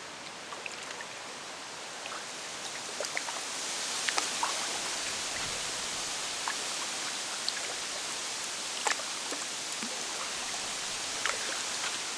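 Steady rush of flowing river water with scattered drips and small splashes; the rush grows louder about four seconds in.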